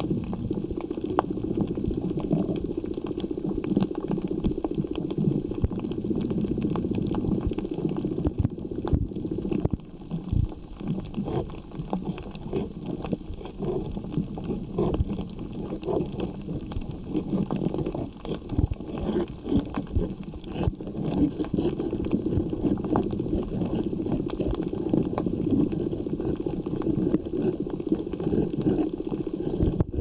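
Underwater sound picked up by a submerged camera over a coral reef: a steady muffled rumble of moving water, with many scattered clicks and crackles throughout.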